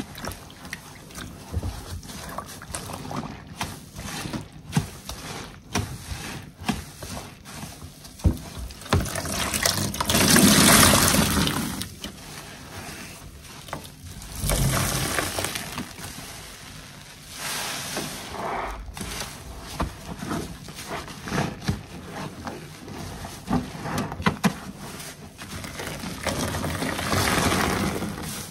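Large sponges soaked in sudsy dish-soap water being squeezed, kneaded and wrung by hand in a basin: wet squelching and sloshing in uneven bursts, loudest for a second or two about ten seconds in.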